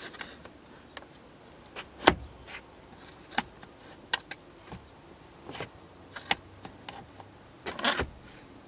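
A string of sharp plastic clicks and knocks from hand-adjusting a car's interior fittings: the seat-belt height adjuster on the door pillar and a front-seat headrest on its metal posts. The loudest knock comes about two seconds in, with a cluster of knocks near the end.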